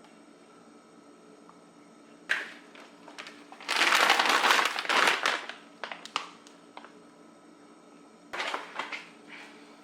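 Plastic packaging being handled, rustling and crinkling in three bursts, the longest and loudest about four seconds in.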